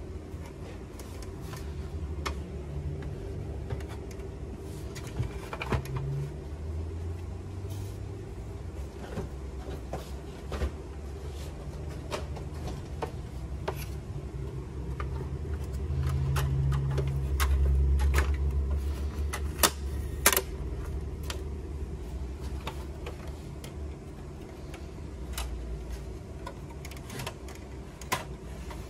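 Scattered clicks and knocks of hard plastic parts being handled while an opened Canon inkjet printer is taken apart, over a steady low rumble that swells for a few seconds past the middle.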